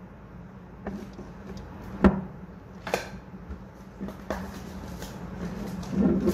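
Handling sounds from a shrink-wrapped phone box on a wooden table: a few sharp knocks and taps, the loudest about two seconds in, then a cluster of rustling clicks near the end as the plastic wrap is picked at.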